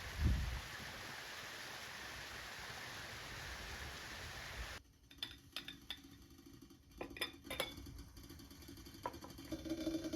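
Steady even hiss like rain or running water with a low thump near the start, cutting off suddenly about five seconds in. Then scattered sharp knocks and clicks, with a steady low hum coming up near the end.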